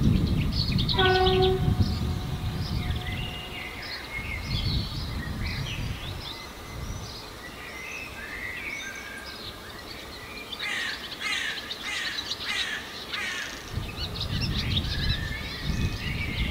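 Small birds chirping and singing, over a low train rumble that fades after the first few seconds and comes back near the end. About a second in, a short horn-like tone sounds at one steady pitch.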